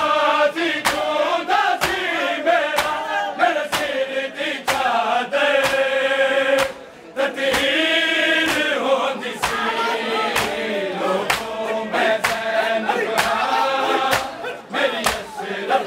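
Male noha reciter and a chorus of mourners chanting a Punjabi lament. Under it the crowd beats their chests in unison (matam), a sharp slap about once a second. The singing drops out briefly about seven seconds in.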